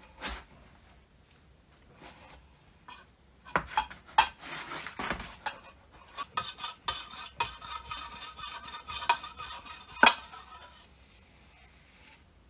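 Metal parts of an old rusty hand air pump clinking and scraping against each other as it is handled, with a few sharp knocks among a run of rapid scraping.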